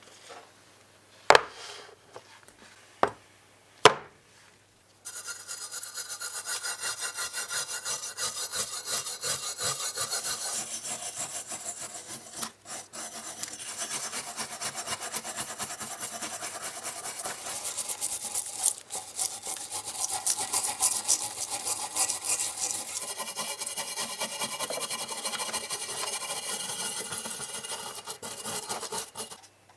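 A few sharp clicks in the first four seconds, then rapid back-and-forth abrasive scraping, many short strokes a second, as a part of a 1/18 scale die-cast model car is sanded or filed down by hand.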